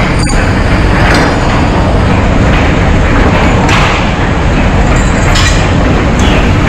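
Loud pig slaughter-line machinery: a steady dense din of running equipment, with about five sharp metallic clanks and knocks scattered through it.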